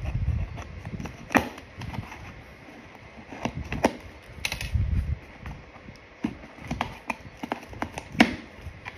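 Handling noise from a parcel being unpacked: scattered sharp taps and knocks a second or more apart, with low thuds as it is moved about.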